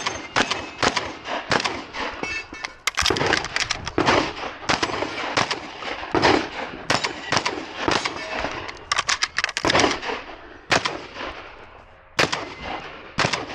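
Semi-automatic 12-gauge shotgun, a Beretta 1301, fired rapidly in an IPSC stage run: quick pairs and strings of shots with short pauses between, and a last pair near the end.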